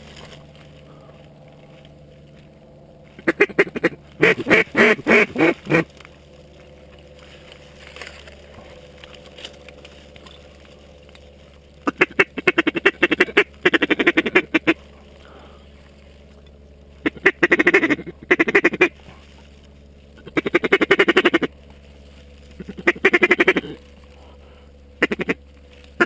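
Duck quacking in loud, close strings of rapid quacks, each string lasting one to three seconds, repeated several times with pauses between.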